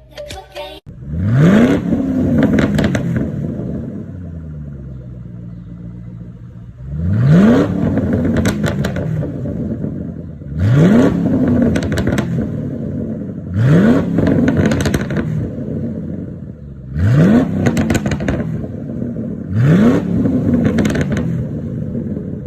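Ford Mustang GT's 4.6 V8 through a free-flow exhaust, revved six times: each rev rises quickly and falls away with a run of mild crackles and pops on the overrun, the effect of a remapped stock ECU.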